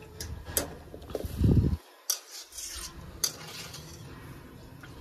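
Metal spoon clinking and scraping against a pan while poha (flattened rice) are stirred in frying oil, with scattered sharp clinks and a heavier clatter about a second and a half in.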